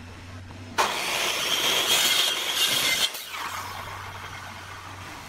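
Electric compound mitre saw starting up about a second in and cutting through a piece of hardwood moulding for about two seconds, then the blade winding down with a falling whine.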